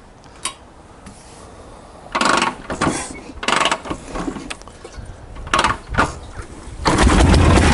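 1947 Harley-Davidson Knucklehead V-twin being kick-started: several short, loud bursts as it is kicked over and fires, then about seven seconds in it catches and runs steadily through its fishtail exhaust pipes.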